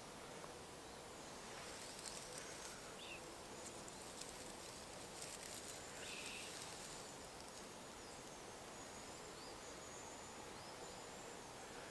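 Faint woodland ambience with a steady high insect trill, two short chirps about three and six seconds in, and light ticking and rustling in the middle few seconds.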